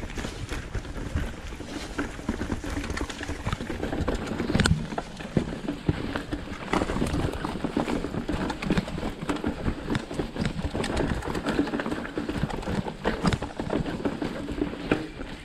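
Mountain bike ridden fast down a forest dirt trail: tyres rolling and crunching over the ground, with the bike rattling and many quick knocks as it runs over bumps, and one sharper knock about five seconds in.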